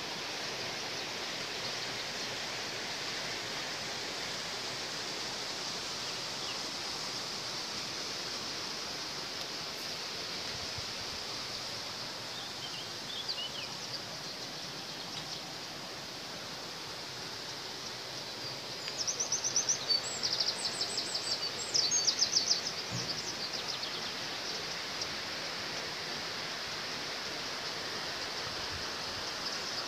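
Steady rushing of a mountain stream. A songbird chirps briefly, then sings a run of rapid, high, repeated notes about two-thirds of the way through.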